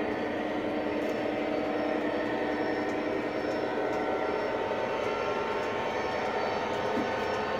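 O gauge model train running on the layout: a steady mechanical hum from the locomotive, with light, irregular clicks of the wheels over the track.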